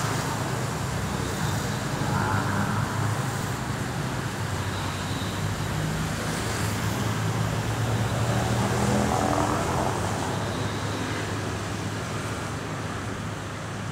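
Steady engine and traffic noise: a constant low motor hum under an even wash of road traffic.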